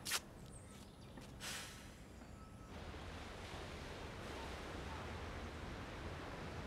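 A brief sharp click and a short breathy puff, then, from about three seconds in, a steady seaside wash of wind and distant surf with a low rumble.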